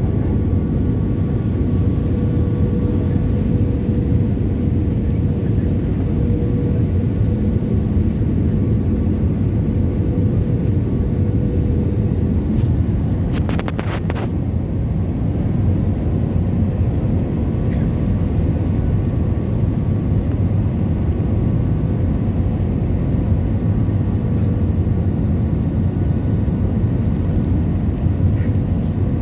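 Steady cabin noise inside an Airbus A320 on its approach: a deep, even rumble of the engines and rushing air, with a thin steady tone above it. A few faint clicks about halfway through.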